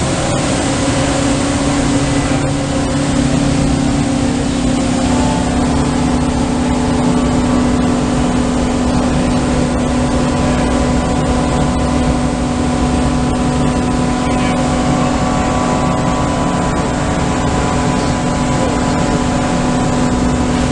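1997 Magerle CNC surface grinder running under power: a steady machine hum with a strong, constant low tone and several fainter steady tones above it.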